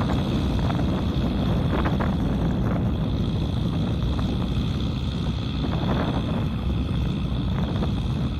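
Kubota M6040SU tractor's diesel engine running steadily while it works an implement through a muddy paddy field. Wind buffets the microphone over it.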